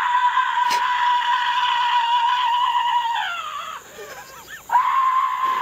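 A person screaming: one long, high scream held for about three seconds that breaks into wavering cries, then a second long scream starts near the end.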